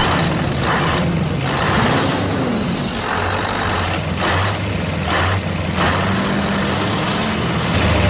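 Heavy truck engine running and revving, with a pitch that rises and falls about two seconds in.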